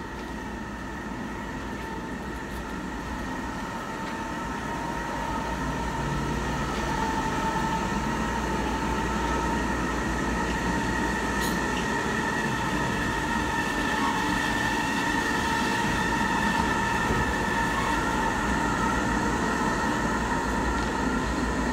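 Resort tram passing close by on its guideway: a steady high-pitched whine over a low rumble, growing louder over the first several seconds and then holding steady as the cars go by.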